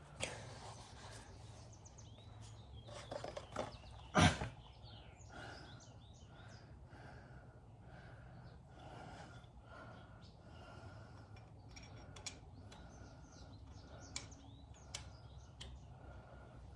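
Faint chirping of small birds over a low steady hum, with a sharp knock about four seconds in and a few lighter clicks later.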